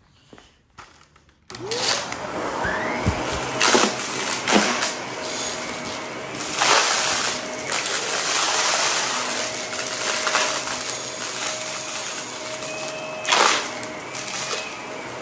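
Dyson DC14 upright vacuum switching on about a second and a half in, its motor whine rising as it spins up, then running steadily while the brushroll crunches through small debris on a carpet mat, with several louder crackling bursts as pieces are picked up.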